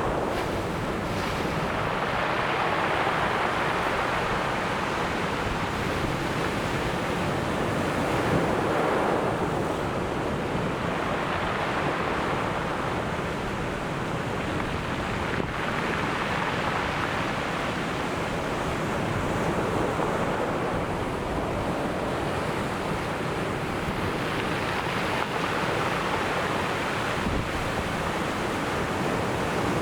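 Ocean surf breaking and washing on the shore, a continuous rush that swells and eases every several seconds, with some wind on the microphone.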